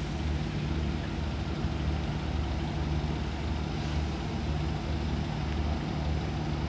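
Cruise ship's engines running as it pulls away from the quay: a steady low hum with a deep, regular throb beneath it.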